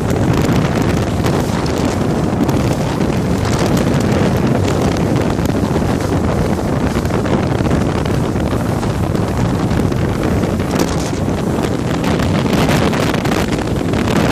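Steady wind noise buffeting the microphone over the rush of spray and wake from a boat moving at speed across open water.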